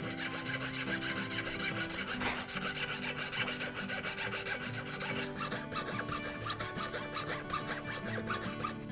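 Pearl cutting saw with a fine blade sawing through an abalone shell blank held on a wooden bench pin: quick, even back-and-forth strokes. The blade is working round a corner of the inlay outline.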